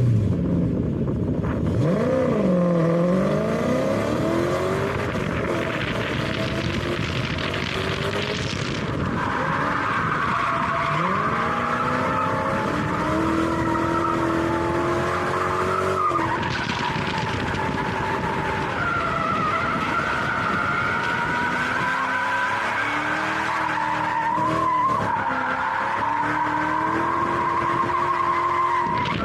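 Drift car on track: the engine revs up and down with the throttle while the tires squeal in a long, steady slide.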